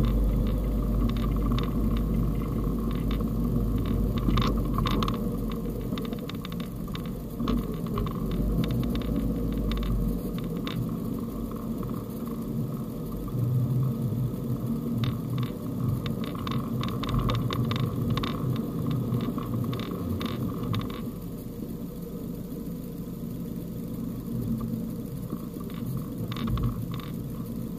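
Fiat Panda Cross driving slowly through snow, heard from the cabin: a steady low engine and road rumble, with many short crackles and knocks as the tyres crunch over snow and the car jolts on the uneven track. A deep hum underneath drops away about ten seconds in.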